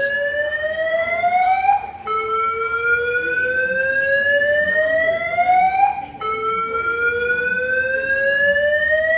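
Airport terminal alarm sounding a slow rising whoop: each tone climbs steadily in pitch for about four seconds, cuts off and starts again low, over and over.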